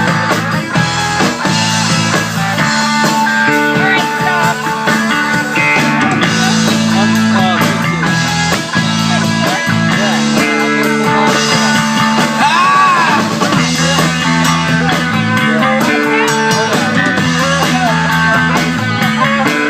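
Instrumental break in a rock song: guitar playing held notes and string bends over a drum kit.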